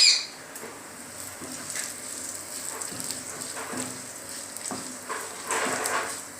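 Dals, dried red chillies, coriander seeds and cumin sizzling as they roast in a little oil in a pan, with a spoon stirring and scraping them now and then.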